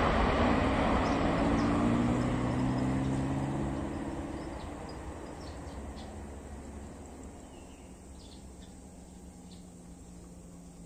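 An airliner's engine noise fading away as the plane moves off down the runway, a loud rush with a low hum that dies down over about eight seconds. Faint bird chirps remain near the end.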